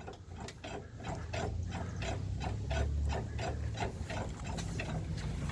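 GMC Envoy body rocking on its suspension as a person bounces on the side of the truck, with quick repeated creaks and squeaks over a low rumble. The struts are leaking and worn out.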